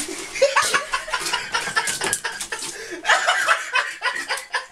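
A person laughing in short, choppy bursts, with a louder fit about three seconds in.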